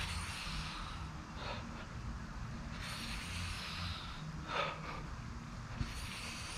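Hard, forceful breathing of a man doing pull-ups: a sharp exhale about every one and a half seconds, one with each rep. A steady low rumble runs underneath.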